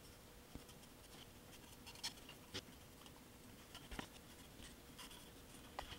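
Very quiet: faint scratching and a handful of light ticks from a damp paintbrush being worked lightly over the brick surface of a plastic model building.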